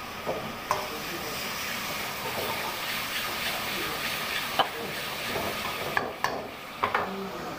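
Sauce sizzling in a hot wok while a steel ladle stirs it, with a steady frying hiss. The ladle knocks sharply against the wok several times, in a cluster near the end.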